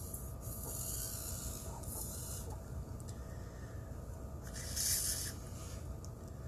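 Faint rubbing and rustling of fingers handling a small plastic sprayer nozzle and hose, with a few short bursts of hiss, the loudest about five seconds in.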